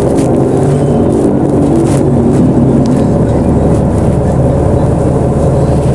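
Engine of a BonLuck DD6181S32 articulated bus running steadily, its pitch rising slightly in the first half.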